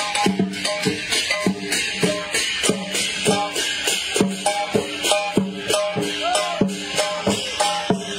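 Chinese lion dance music: a quick, even beat of drum and cymbal strikes, with a melodic line held over it.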